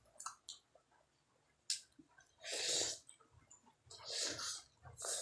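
Close-miked mouth sounds of someone eating a steamed chicken momo: a sharp wet smack, then three longer noisy mouth sounds of chewing and breathing, the loudest about halfway.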